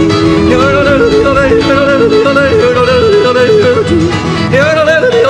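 Country-and-western song: a voice yodeling in quick, breaking notes over instrumental backing.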